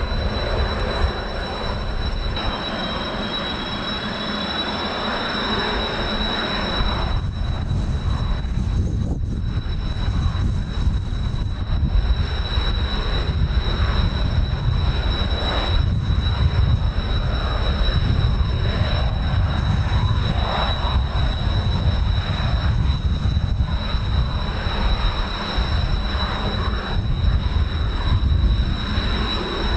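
Kawasaki T-4 jet trainers' turbofan engines running with a steady high whine, a rising whine briefly joining early on. From about seven seconds in, strong gusty wind rumbles heavily on the microphone.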